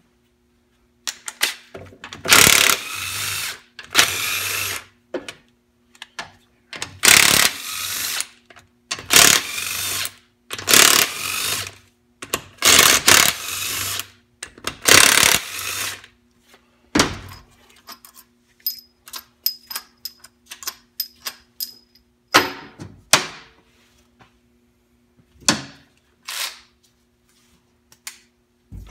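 A power tool spinning out the 4L80E transmission's pump bolts in short runs of about a second each, roughly seven of them over the first half; then light metallic clicks and clinks as the bolts and tool are handled.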